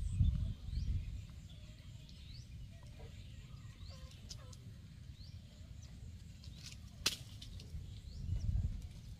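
Low rumble of wind on the microphone, with a small bird's short rising chirps repeating in the background. A single sharp click comes about seven seconds in.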